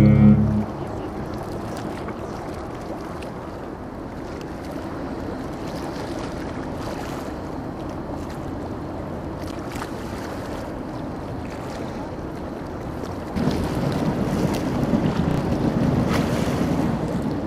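Wind buffeting the microphone, with a rushing sound of water, growing louder about 13 seconds in. A deep steady tone cuts off in the first second.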